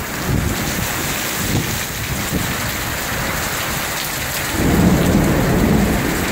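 Heavy rain pouring down in a thunderstorm, with thunder rumbling underneath; the rumble grows louder about four and a half seconds in.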